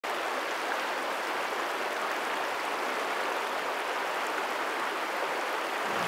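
Steady rush of a mountain stream cascading over rocks.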